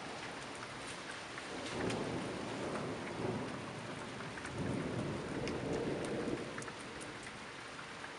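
Thunderstorm: steady rain with individual drops ticking, and thunder rumbling in two swells, a short one about two seconds in and a longer roll in the middle.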